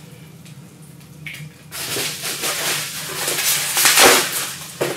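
Quiet at first, then from about a second and a half in, irregular rustling and handling of packaging as a small boxed model car body is unwrapped by hand.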